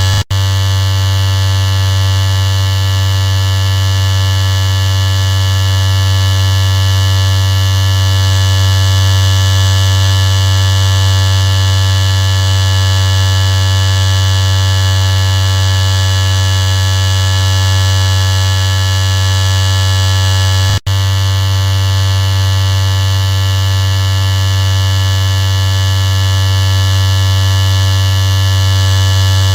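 Electric shaver running steadily with a loud, even buzz, cutting out for an instant twice: just after the start and about two-thirds of the way through.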